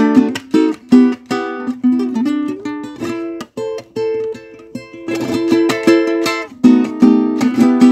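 Background music of plucked string instruments playing a quick, busy melody of short plucked notes.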